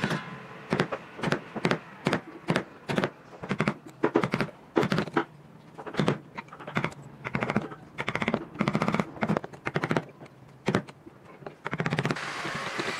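Narrow wood chisel being struck to chop out a mortise in a wooden chair rail: a series of sharp knocks, about two a second, some in quick clusters. About a second before the end, a steady hissing noise takes over.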